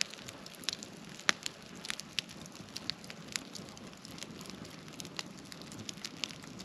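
Campfire crackling: scattered, irregular sharp pops over a soft steady hiss.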